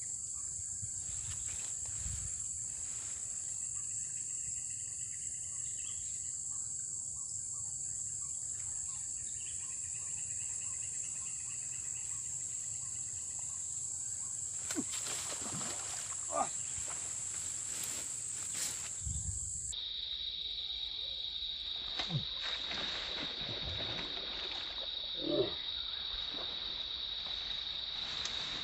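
Insects droning steadily at one high pitch. After a cut about two-thirds of the way through, the drone comes back at a lower pitch. A few faint knocks are heard in the second half.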